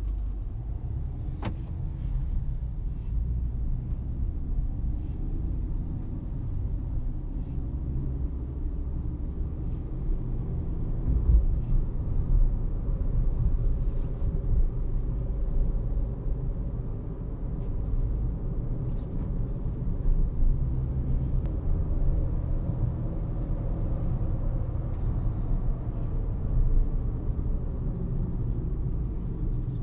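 A 2023 Hyundai Exter's 1.2-litre Kappa four-cylinder petrol engine and tyres on the move: a steady low road rumble with a faint engine hum over it. There is a single click about a second and a half in.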